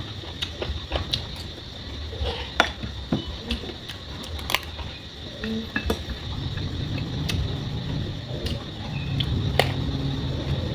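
A metal spoon clinking and scraping against a ceramic bowl in scattered sharp clicks, with close-up chewing of raw vegetables such as small round eggplant, heavier in the second half.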